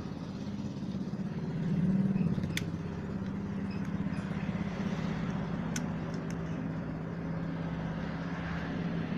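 Steady engine hum with a low drone that swells briefly about two seconds in, and a few light clicks.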